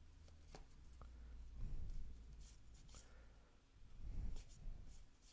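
Cardboard trading cards being flipped and slid through the hands, faint papery scrapes and light ticks, with two soft low bumps of handling, about two seconds in and near four seconds.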